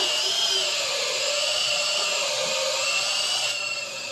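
Milwaukee M12 Fuel cordless drills boring auger bits into a wooden beam: a steady, high motor whine over the noise of the bit cutting through the wood, easing slightly near the end. The drill is not bogging down under heavy hand pressure.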